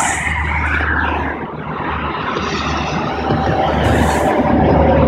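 Highway traffic passing under an overpass: the steady rush of tyres and the low rumble of truck engines, growing a little louder toward the end.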